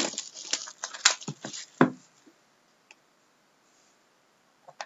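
Hands handling and opening a trading card box: quick rustling and clicks of the packaging for about two seconds, then quiet, with another click near the end.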